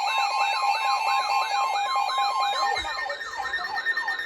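Several weather alert radios sounding together for an incoming warning: a fast warbling siren sweeping up and down about three to four times a second over steady alert tones. About two-thirds of the way through, some of the steady tones stop and another begins.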